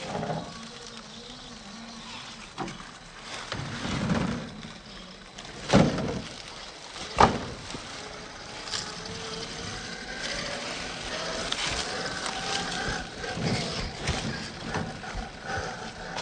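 Axial SCX10 III scale RC crawler with a brushed 550-size electric motor, crawling over rock: a faint motor whine that rises slowly in the second half, and two sharp knocks of tyres or chassis on rock about six and seven seconds in.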